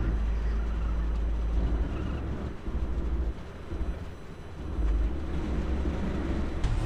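Low rumble of the sailboat's inboard engine as it manoeuvres into a berth, dropping back about three and a half seconds in and surging again about five seconds in.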